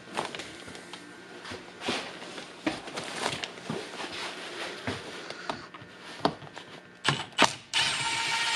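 Scattered clicks and knocks of the seat being handled, then near the end a cordless power driver runs steadily for about a second, backing a bolt out of the side of the seat base.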